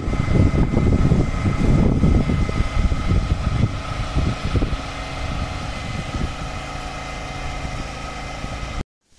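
A steady mechanical hum with two thin steady tones, under an uneven low rumble that is heaviest in the first four seconds and eases after; it cuts off abruptly near the end.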